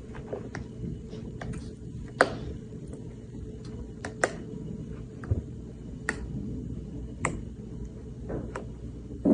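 Scattered light clicks and taps, a few sharper ones spaced a second or two apart, over a low steady hum.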